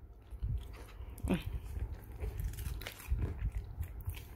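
Small long-haired dog giving one short whine that falls in pitch about a second in, among scattered soft clicks and low thumps.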